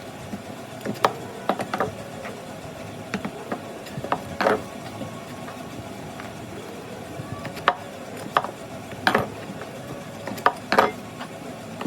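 A series of irregular sharp clicks and knocks, some in quick pairs, over a steady low hum: hand work with tools or hard parts.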